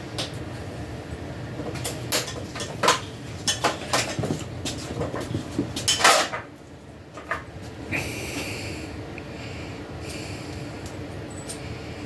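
Hand tools and metal parts clinking and knocking against each other as a part is worked off a motorcycle: a quick run of sharp clicks and clanks, the loudest a heavier knock with a short scrape about six seconds in, then quieter.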